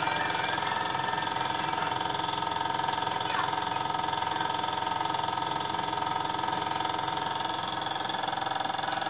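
Sankyo Sound-700 Super 8 sound projector running: the steady mechanical whirr and clatter of its motor and film transport.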